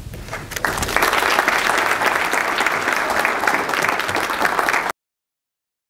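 Audience applauding, building up under a second in and cutting off suddenly near the end.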